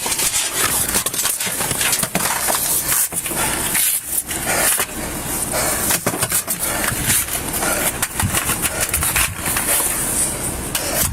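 Irregular scuffs and knocks over a steady hiss, typical of clothing and gear rubbing against a body-worn camera while the wearer moves.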